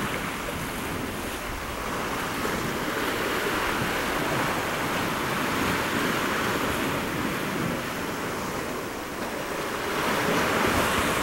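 Sea surf washing against a rocky shore: a steady rush of water that swells and eases slowly, with some wind on the microphone.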